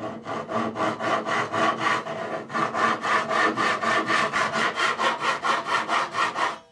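Japanese pull saw cutting across the ends of teak boards in quick, even strokes, about five a second.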